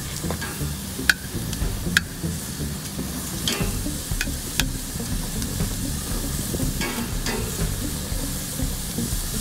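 Butter-coated broccoli sizzling on hot gas-grill grates as pieces are laid down with metal tongs, with several sharp clicks of the tongs against the grate and plate.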